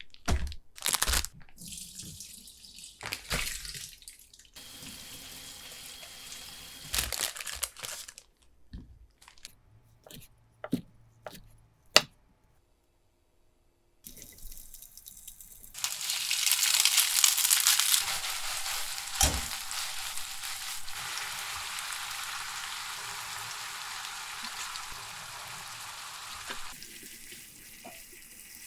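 Kitchen work: scattered clicks and knocks of utensils and cookware, then, after a short break, food sizzling in a hot frying pan. The sizzle starts suddenly and fades slowly over about ten seconds.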